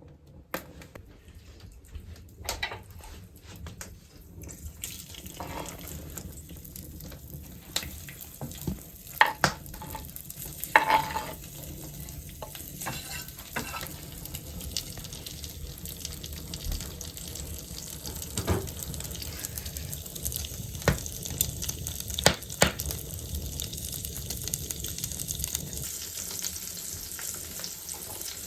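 Food sizzling and crackling in a hot pan, building up over the first few seconds and then steady, with a few sharp clinks and knocks, the loudest about a third of the way in.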